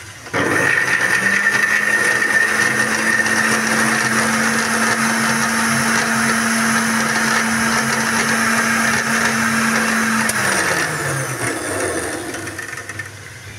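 Electric blender grinding green chillies, ginger and garlic into a paste: the motor starts at once with a steady hum, runs at one pitch for about ten seconds, then winds down with a falling pitch.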